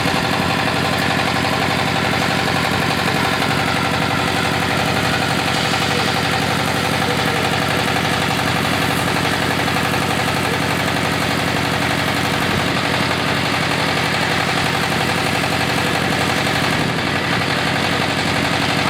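Engine of a GY-200-1A engineering drilling rig running steadily at an even speed.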